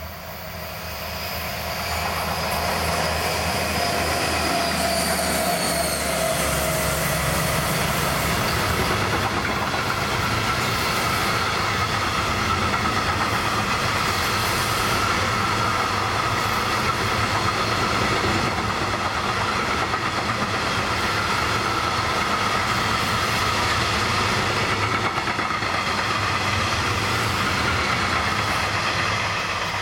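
Electric-hauled freight train passing close by. The locomotive's whine drops in pitch as it goes past a few seconds in, then a long string of open freight wagons rolls by with a steady high wheel squeal and rail clatter. The sound falls away near the end.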